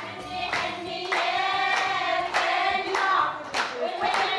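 A group of women singing a wedding song together, kept in time by steady hand-clapping at a little under two claps a second.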